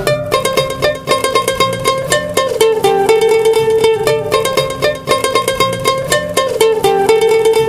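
Background music: a quick, bright melody on plucked strings over a steady rhythm.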